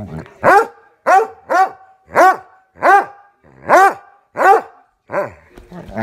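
Redbone coonhound barking in mock anger during rough play: eight short barks, about one every two-thirds of a second, the last one weaker.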